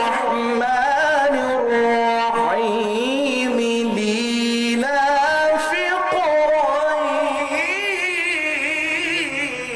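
A man reciting the Quran in melodic chanted Arabic, one solo voice. He holds long notes and decorates them with quick wavering turns. His phrase trails off at the end.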